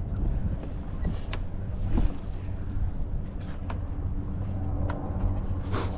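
Wind rumbling on the microphone, with a few sharp clicks and scrapes from boots on sandstone and the steel chain handrail.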